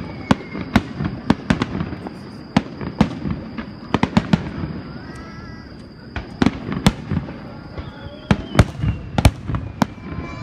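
Aerial firework shells bursting in a display, giving rapid, irregular bangs and crackles over a continuous low rumble. The reports thin out briefly in the middle and come thick and fast again near the end.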